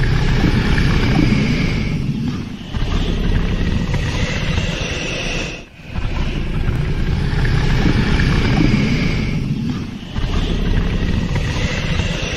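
Sound-effect growls for megalania, the extinct giant monitor lizard: a series of long, low growls, each lasting three to four seconds, following one another with short breaks.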